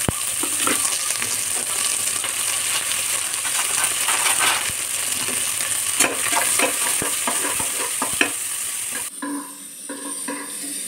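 Chopped red onions sizzling in hot oil in an aluminium pressure cooker, with a metal spatula scraping and clicking against the pot as they are stirred. The sizzle drops off sharply about nine seconds in.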